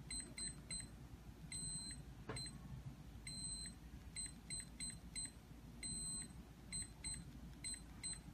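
Electronic keypad deadbolt beeping as its touch keys are pressed: a string of short, same-pitched beeps, one per key, broken by three longer beeps, with a faint click a little after two seconds in.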